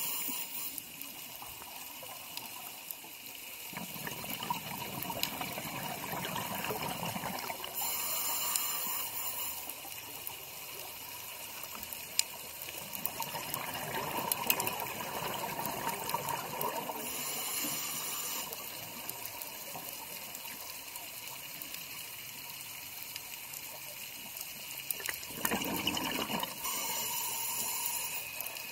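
Scuba breathing heard underwater: bursts of regulator exhaust bubbles gurgling, three times, about every ten seconds, over a steady watery rush.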